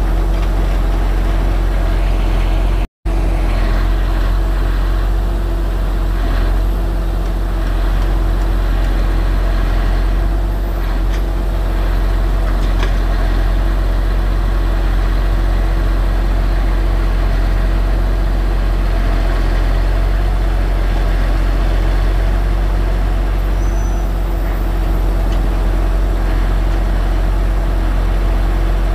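A heavy engine running steadily: a low rumble with a steady hum over it. The sound cuts out for an instant about three seconds in.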